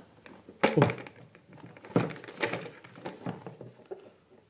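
Hollow plastic parts of a toy ice cream cart knocking and clicking as they are handled and fitted together, with a few sharp knocks, the loudest about a second in and another about two seconds in.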